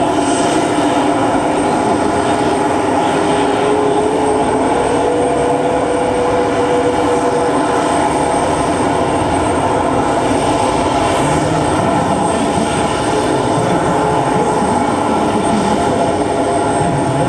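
F-15SG and F-16 fighter jet engines running at ground idle: a steady, loud roar with a constant high whine. A fainter tone rises slightly a few seconds in.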